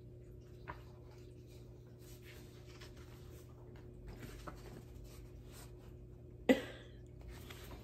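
Soft paper rustling as coloring-book pages are handled, over a faint steady hum. One short, sharp, loud sound comes about six and a half seconds in.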